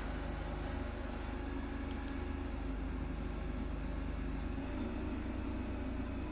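An engine running steadily at a constant speed, a low even drone with no revving.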